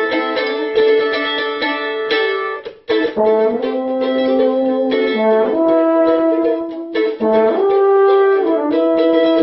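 French horn and mandolin duet. The mandolin picks rapid notes alone at first; after a brief break about three seconds in, the French horn enters with long held notes that move step by step over the mandolin's picking.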